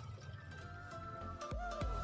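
Background music with steady sustained notes, and a brief tone near the end that rises and falls.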